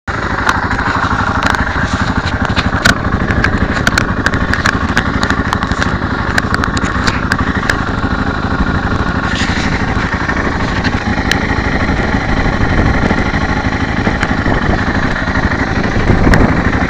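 Motorcycle engine running under way, mixed with heavy wind rush on a bike-mounted camera's microphone and scattered sharp clicks. The sound cuts off suddenly at the end.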